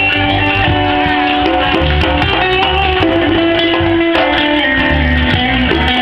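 Live reggae band playing, guitars and keyboard over a pulsing bass line with a steady beat.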